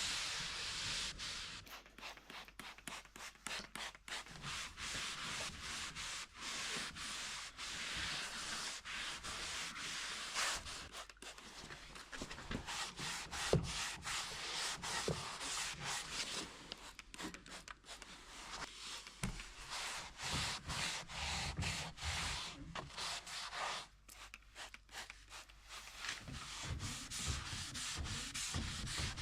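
A cloth rubbing furniture polish into the wooden surface of a mahogany dresser: repeated hand strokes make a soft hiss with many short breaks.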